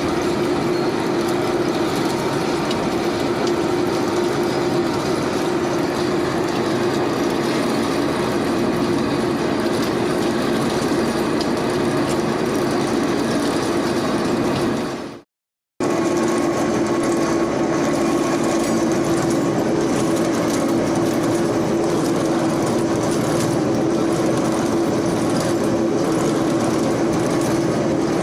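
Vertical lathe running while it machines a ring: a steady mechanical hum with a constant mid-pitched tone. The sound breaks off to silence for about half a second roughly halfway through, then carries on unchanged.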